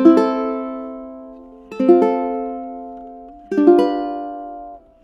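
Solid-mahogany tenor ukulele (Snail SR-01T) with Worth carbon strings: three chords, each picked as a quick roll of single notes about every two seconds and left to ring and fade. The last one is damped just before the end.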